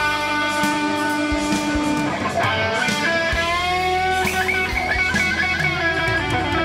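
Electric guitar lead solo played through a Marshall JCM 800 head driving a half stack. It is a melodic line of long held notes, with a high note wavering in vibrato about two-thirds of the way through.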